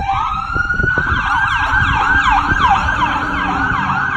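Loud ambulance siren: a rising wail that switches about a second in to a fast yelp of about three sweeps a second.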